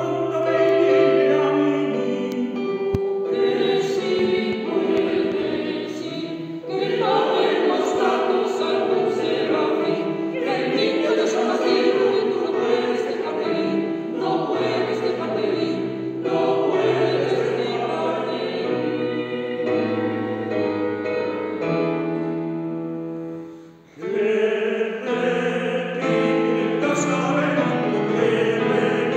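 Mixed choir of men's and women's voices singing a Spanish folk song in several parts. The singing fades into a short break about three-quarters of the way through, then comes back in.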